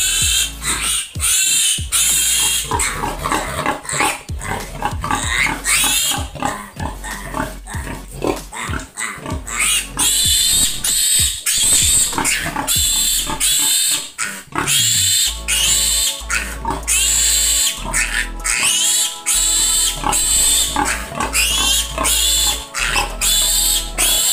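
Piglet squealing loudly again and again in short, high-pitched cries while it is restrained for castration. Background music with steady held notes becomes clearer in the second half.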